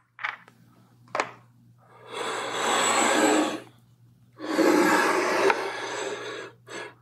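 Metal model stand dragged across a wooden desktop twice, each a rough scraping rub of about a second and a half to two seconds, with a few light clicks and knocks of handling around them.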